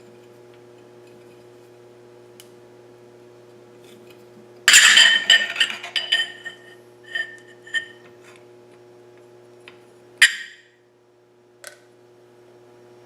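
Metal objects clattering and clinking: a loud burst about five seconds in trails off into smaller ringing clinks over the next few seconds, then one sharp clink near ten seconds. A steady electrical hum runs underneath.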